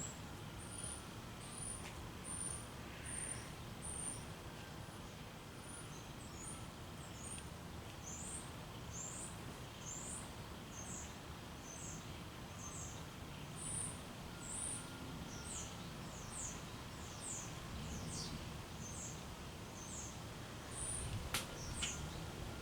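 56-inch Canarm industrial ceiling fan running steadily with a low hum, while a bird sings a long series of high, thin notes about twice a second, short and even at first, then sliding downward. Two sharp clicks near the end.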